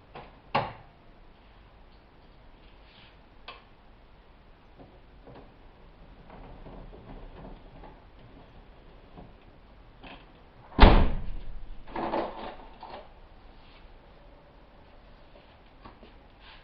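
A few knocks and thumps. There is a sharp one about half a second in and the loudest near the middle, followed by a short clatter, over a quiet background.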